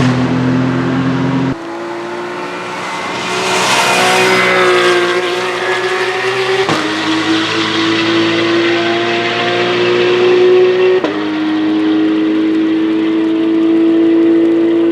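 Race car engine pulling hard under acceleration, its pitch climbing steadily and dropping sharply at upshifts about seven and eleven seconds in.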